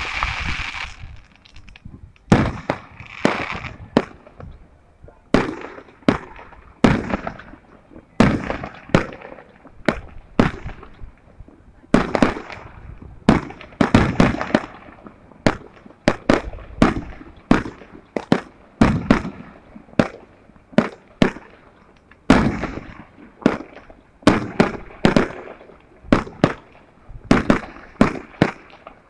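Aerial fireworks going off in quick succession: sharp bangs about one to two a second, each fading off briefly, with no let-up.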